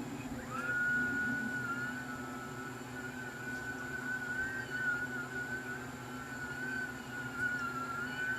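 Portable turbine mini washing machine's small motor spinning in a bucket of water with detergent: a steady whine that starts about half a second in and wavers slightly in pitch, over a low hum.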